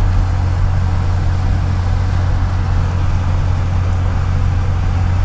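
Steady road noise heard from inside a car cruising on a highway: a constant low hum under an even hiss.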